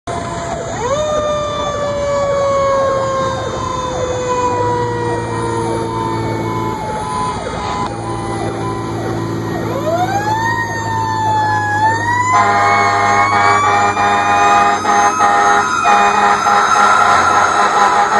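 Fire truck's mechanical siren heard from inside the cab, winding up about a second in and then coasting slowly down in pitch, winding up again around ten seconds in, over the truck's engine. From about twelve seconds in, a loud steady multi-toned horn sounds with the siren to the end.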